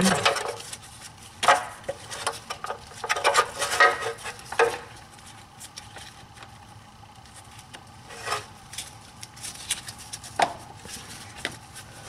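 Gloved hands working a brake pad wear sensor wire into its retaining clips: a handful of irregular sharp clicks and taps of cable and plastic clips, with rubbing and rustling in between.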